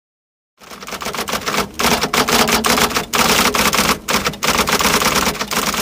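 Rapid typing. Keys clack in quick runs with a few short breaks, starting about half a second in.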